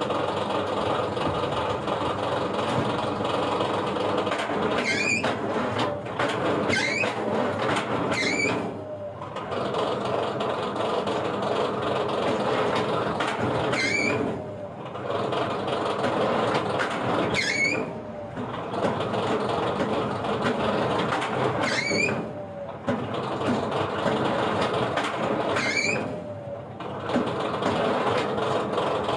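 Heavy wood-processing machinery running steadily. A short squeal repeatedly rises in pitch, and the level drops briefly again and again, about every four seconds in the latter part.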